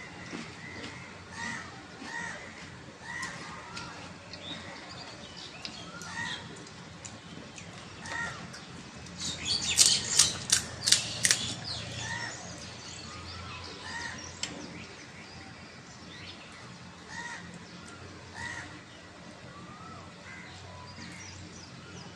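A bird calls over and over in the background, a short call every second or two. About ten seconds in comes a quick run of crisp cracks and crunches, typical of a hollow fried puri shell being broken open and bitten.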